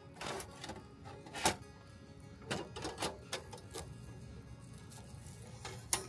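Metal clinks and clacks as a steel wire grill grate is set down and shifted on a stainless folding fire grill over burning charcoal. There are a few separate sharp clacks, the loudest about a second and a half in.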